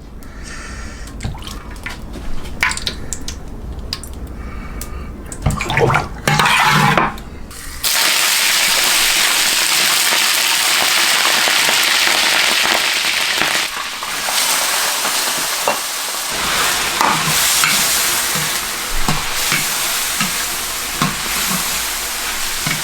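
Kitchen clatter, then about a third of the way in chicken pieces go into hot oil in a wok and set off sudden, loud, steady sizzling. Later the sizzling carries the knocks and scrapes of a spatula stir-frying the chicken.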